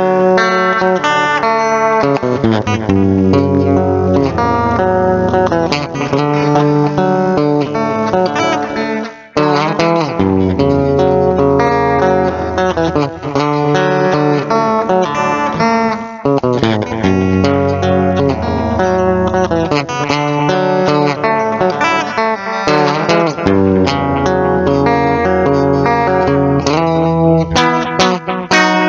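Guitar music with low bass notes under it, loud and continuous, with a brief drop about nine seconds in.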